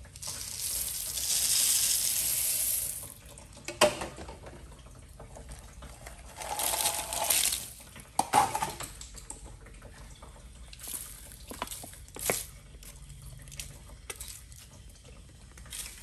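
Small dry cereal and candy pieces poured from plastic cups into a toilet bowl: a long rushing pour in the first three seconds, another about halfway through, with scattered clicks and taps between.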